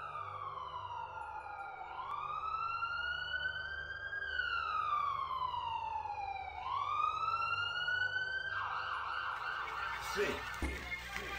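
Wailing siren sound effect, its pitch sliding slowly down and back up about every four seconds, two full cycles. About three quarters of the way through it gives way to a dense wash of noise.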